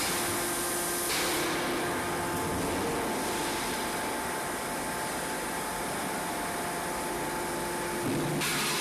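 Steady running noise of forging-shop machinery with a faint constant hum. A brief louder hiss comes about a second in and again near the end. No hammer blows are heard.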